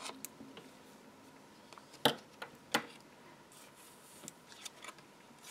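Small scissors snipping a paper print: scattered light clicks, the two sharpest about two and three seconds in, then a little soft paper rustling.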